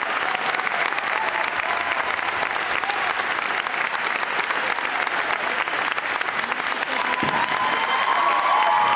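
An audience clapping steadily, with voices calling out over it that grow louder near the end.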